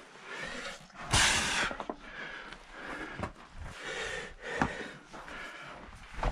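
A hiker's heavy breathing close to the camera, with a few footsteps striking rock. A louder rush of noise comes about a second in.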